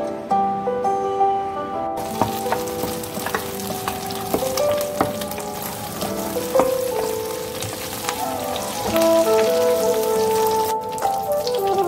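Curry leaves and dried red chillies sizzling in hot oil in a pan, starting about two seconds in and breaking off briefly near the end. Background music plays throughout.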